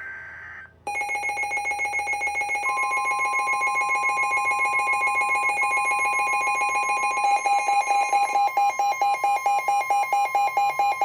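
Weather radio receiver's alert alarm: a loud, rapidly pulsing electronic beep. About two and a half seconds in, the steady NOAA Weather Radio warning alarm tone of about 1 kHz joins it, signalling the start of a flash flood warning broadcast. The beeping grows louder about seven seconds in.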